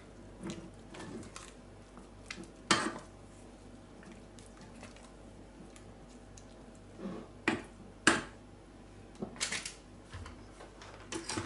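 Silicone spatula stirring and scraping stiff, cooled pastry cream in a stainless steel pot, with a few sharp knocks against the pot about three seconds in and again around eight seconds in.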